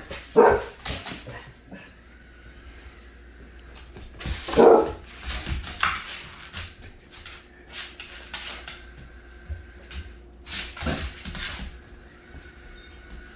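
English Labrador barking, a few loud deep barks spaced several seconds apart, the loudest about four and a half seconds in. Between the barks there are scattered light clicks and a faint steady hum.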